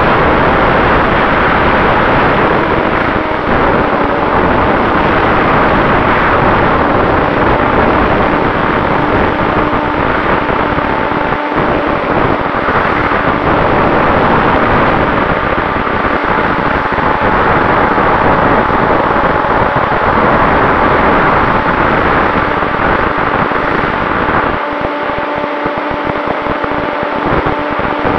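RC plane in flight heard from its onboard camera: loud wind rush over the microphone with the steady whine of the electric brushless motor and propeller. Near the end the low rumble thins out and the motor's tone changes.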